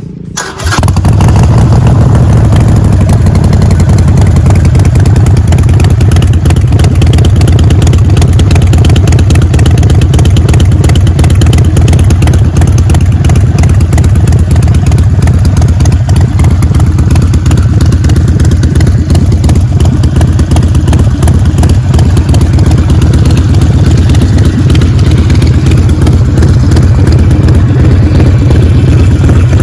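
Harley-Davidson Sportster 48's 1200 cc V-twin running through a Vance & Hines full-system exhaust, loud and steady; the sound starts abruptly about half a second in.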